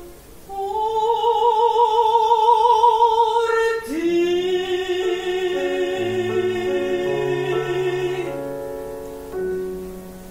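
Female classical singer holding the final notes of an art song with strong vibrato: one long note, then a lower note held for about four seconds over changing grand piano chords. After the voice stops, the piano plays a closing chord alone, which fades away.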